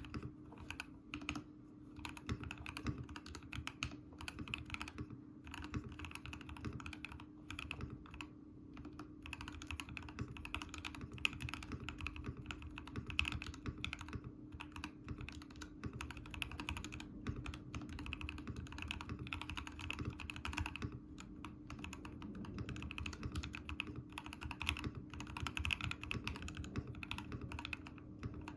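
Ikki68 Aurora mechanical keyboard with Durock L2 switches being typed on fast and continuously, a dense run of keystrokes with short pauses now and then. A faint steady low hum sits underneath.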